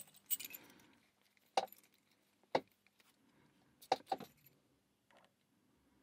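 Keys and metal Kaba lock cylinders jingling and clinking as they are handled: a short jingle at the start, single clinks about a second apart, and a double clink around four seconds in.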